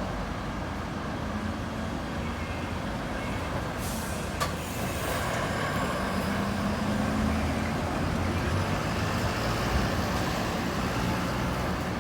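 A heavy engine running steadily, its low hum swelling a little in the second half, with a brief hiss and a sharp click about four seconds in.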